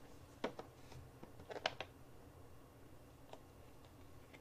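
Quiet room with a few short, faint clicks and ticks: a pair about half a second in, a small cluster around a second and a half in, and a single one later.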